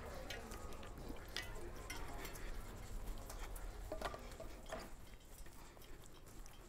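Faint scratching and small scattered ticks of several people writing with pens on paper in a quiet room, with a couple of slightly louder rustles or clicks about four seconds in.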